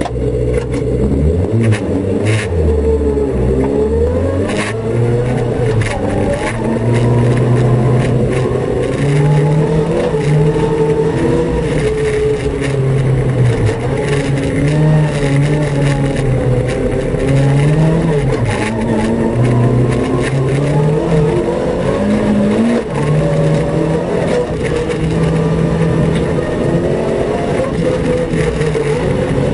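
Renault Twingo rally car's engine pulling hard on a gravel road, heard from inside the cabin: the revs climb and drop back again and again as it goes through the gears. Gravel clatters and pings against the car throughout.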